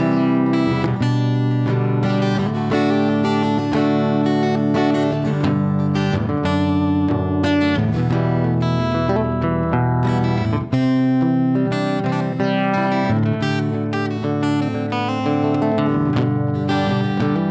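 Acoustic guitar playing an instrumental passage of a song, a steady flow of plucked notes and chords with no singing.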